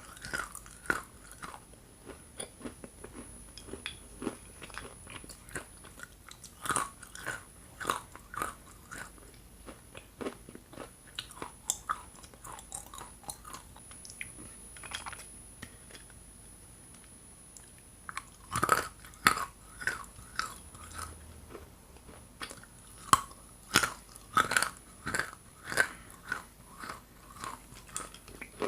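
Hard chunks of edible Ural clay being bitten and chewed close to the microphone: sharp, irregular crunches with softer chewing between them, a quieter spell around the middle and a run of loud crunches in the last third.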